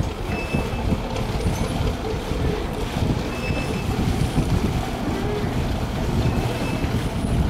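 The Hythe ferry Hotspur IV's diesel engine running with a low, uneven rumble as the boat manoeuvres close by.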